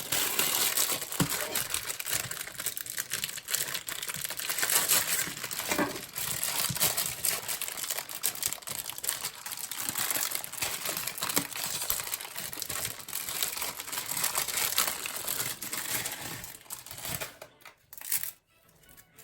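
Dry Maggi instant noodle cakes being broken up by hand, a dense crunching and crinkling crackle that stops near the end.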